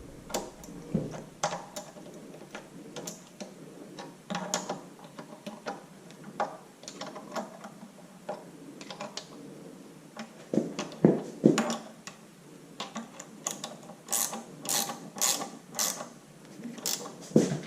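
Hand wrench turning an oil-pump mounting bolt down in a cramped engine crankcase, with irregular metallic clicks and taps. A louder run of sharp, evenly spaced clicks comes about three-quarters of the way through as the bolt is snugged down.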